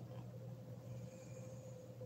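A quiet pause between snores: a steady low hum runs throughout, with a faint soft breath from the sleeping woman about a second in.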